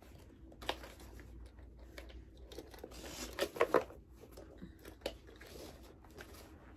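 Fabric shoulder strap of a water-bottle sleeve being pulled through its adjuster to lengthen it: faint rustling and scraping with scattered small clicks, busiest a little past the middle.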